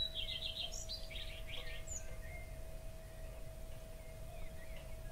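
Birds chirping in quick runs of short high notes, busiest in the first two seconds, over a steady faint hum and a low background rumble.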